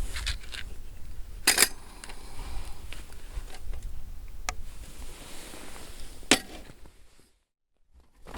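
A few sharp clicks and knocks, two of them louder than the rest, as camping gear is handled. The sound cuts out completely about a second before the end.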